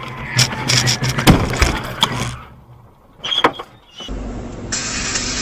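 Car collision heard from inside the car: a run of loud bangs and clatter lasting about two seconds, loudest about a second in, as the dash camera is knocked off its mount. A couple of sharp clicks follow, then the sound cuts to steady road noise.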